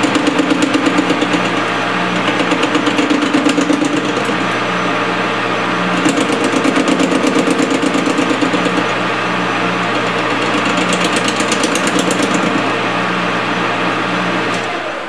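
Metal lathe turning a gear on a mandrel while a hand-fed cutting tool takes a cut, throwing off chips. The cutting noise comes with a rapid pulsing chatter that comes and goes several times, and the sound falls away just before the end.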